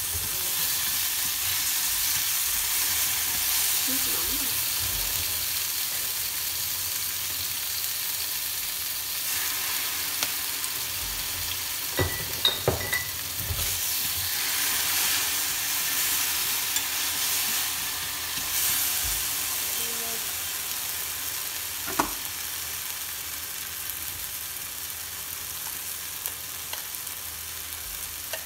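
Tomato wedges and garlic sizzling in oil in a stainless steel frying pan, with a steady high hiss. Chopsticks stir them, clicking sharply against the pan a few times around the middle and once more later.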